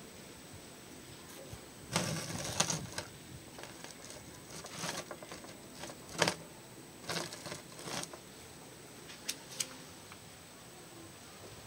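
Intermittent rustling and light knocks of a handheld phone camera being moved and handled. The longest and loudest rustle comes about two seconds in, with shorter ones and sharp clicks after it.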